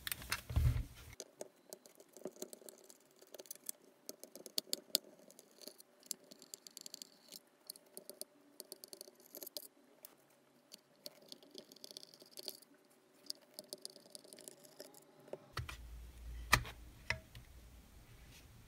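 Faint, irregular clicking and ticking of a small screwdriver backing screws out of a desoldering gun's plastic housing. Near the end, handling rumble and a few louder plastic clicks as the housing halves come apart.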